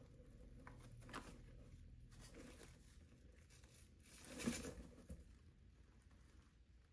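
Faint feather and wing rustling from a juvenile Cooper's hawk as she steps from the glove onto the perch, with one brief louder flurry of wings about four and a half seconds in; otherwise near silence.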